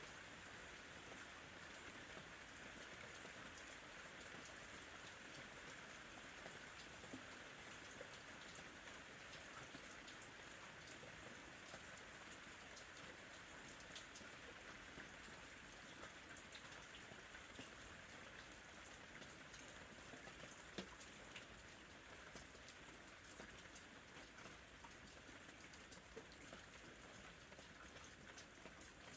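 Soft, steady rain falling, with scattered faint drop ticks.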